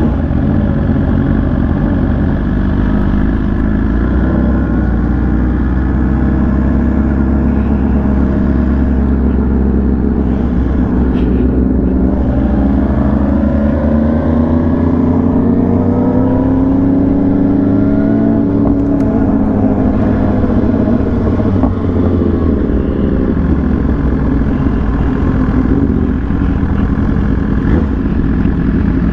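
A vehicle engine runs steadily throughout. In the middle its note rises in pitch and falls back again over several seconds.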